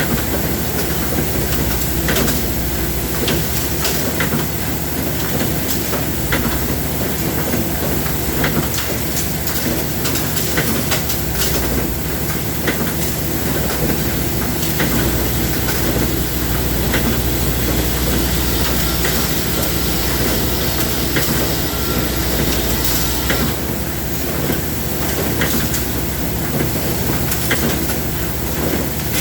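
Machinery running with a steady loud noise and many scattered sharp clicks, and a thin high whine from about the middle until a few seconds before the end.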